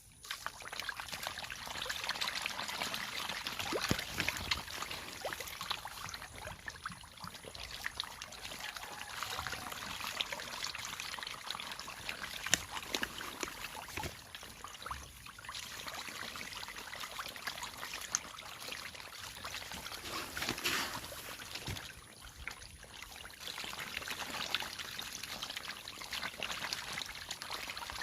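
Water splashing and trickling continuously, broken by many small sharp splashes.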